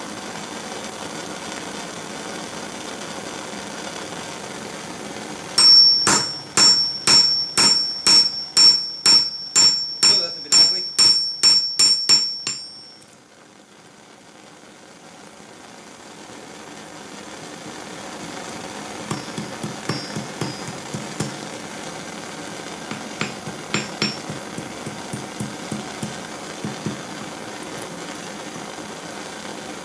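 A propane torch hissing steadily, then a run of about fourteen hammer blows from a cross peen hammer on a small stake anvil, each with a high ring, as hot steel is forged. After a short quieter stretch the hiss comes back, with lighter, quicker taps.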